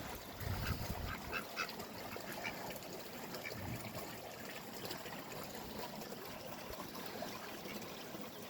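Ducks making several short quacks in the first couple of seconds, then faint scattered ticking.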